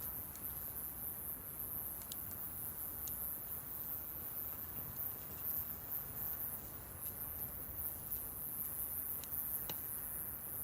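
Wood campfire burning close up: a steady hiss of the fire with scattered sharp crackles and pops from the burning wood, several seconds apart.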